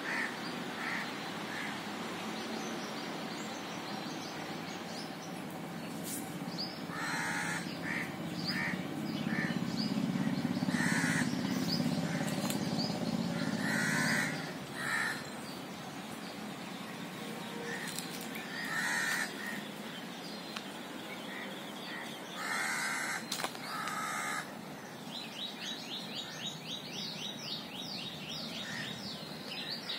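Birds calling in a tree: loud harsh calls come in short groups every few seconds over softer chirps, and near the end a quick run of rising notes. A low rumble swells for a few seconds in the middle.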